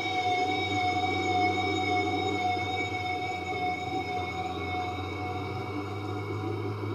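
Yamaha FZ1 motorcycle's inline-four engine running at steady speed, a steady whine over rushing wind noise.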